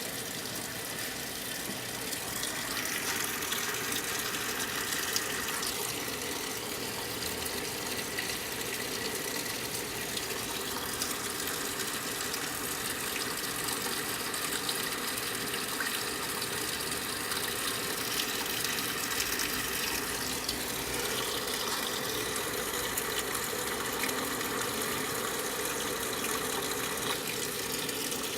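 Water running steadily into the drum of a Brastemp 9 kg washing machine as it fills to its high water level.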